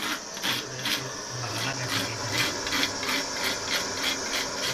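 Handheld gas-cartridge torch burning with a steady hiss as it heats a copper pipe joint for soft-soldering, with a regular pulsing about three times a second.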